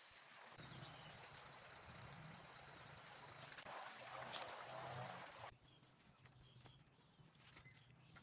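Faint outdoor ambience: insects chirping in a fast, even pulse over a low hiss of flowing stream water, dropping to a quieter background with a few faint ticks about five and a half seconds in.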